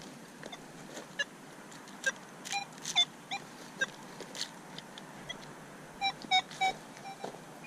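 Metal detector giving short beeping target tones as the coil is swept over the ground: a cluster of chirps a couple of seconds in and three quick beeps about six seconds in, with a few light clicks between.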